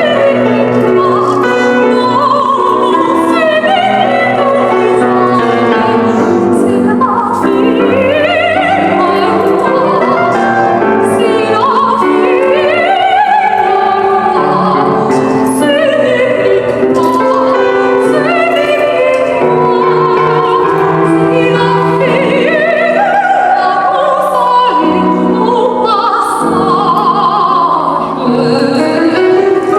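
Soprano singing an opera aria with vibrato, accompanied by piano.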